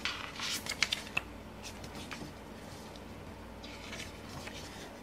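Pages of a photobook being handled and turned: a short paper swish and a few sharp ticks in the first second or so, then a softer rustle near the end.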